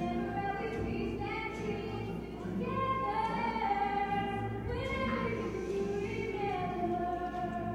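A woman singing a melody into a microphone, with acoustic guitar accompaniment, in a live performance; her sung notes are held for about a second each.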